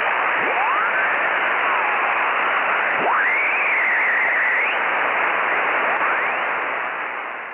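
Shortwave radio receiver hiss and static with whistling tones that glide up and down. One whistle rises sharply about three seconds in and wavers for over a second. The noise fades out near the end.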